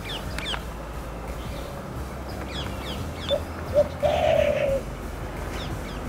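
A dove cooing: two short low notes a little past the middle, then a longer held coo, the loudest sound here. Small birds chirp with quick, high, falling notes at the start, around the middle and near the end.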